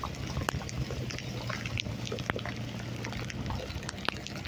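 Heavy rain pouring down, with many sharp drips and drops striking nearby surfaces. A steady low hum runs underneath and stops about three and a half seconds in.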